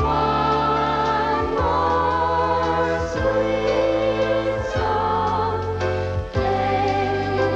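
A slow, gentle song: voices holding long, slightly wavering notes over sustained accompaniment chords that change about every one and a half seconds.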